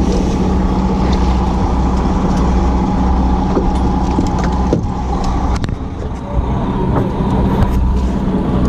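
A fishing boat's engine running steadily with a low, even hum, plus a few light clicks and knocks.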